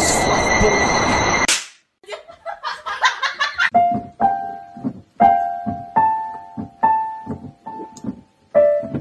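Electronic keyboard notes struck by a cat's paws: a quick flurry of notes, then single notes pressed one at a time, slowly and unevenly. Before that, a loud noisy sound with a steady high tone cuts off abruptly about a second and a half in.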